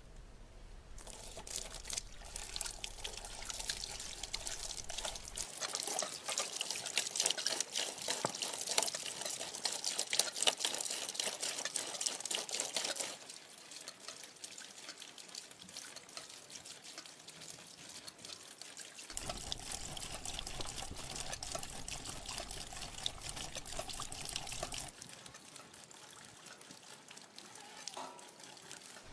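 Liquid running and pouring, with trickling and small splashes: heaviest from about a second in until roughly the halfway point, then softer, with a second stronger stretch after the halfway point.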